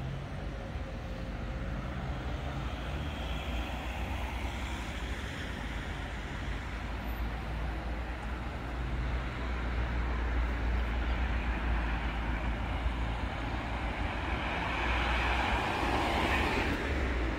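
Steady low rumble of vehicles. It grows a little louder about ten seconds in and swells again near the end.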